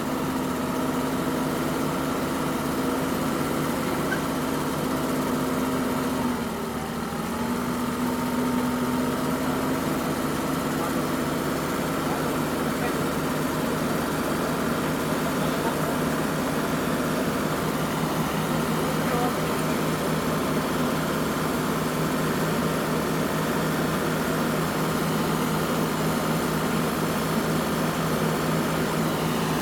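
Mini excavator's diesel engine running steadily, with its electric fuel pump now working. The engine speed sags briefly about six seconds in, then picks back up and holds steady.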